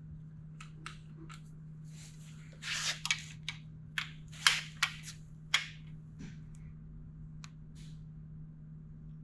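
Sharp, irregular metallic clicks and clanks from hand tools on the camshaft sprocket bolt as it is tightened to 50 foot-pounds. The clicks bunch in the middle, with the loudest about halfway through.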